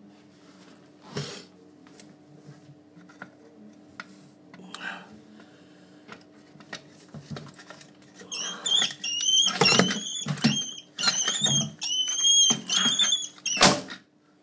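A rat with its foot caught in a trap squealing in distress: a quick run of shrill, high squeals starting about eight seconds in, with a couple of loud thumps among them. Before that there are only faint knocks over a steady low hum.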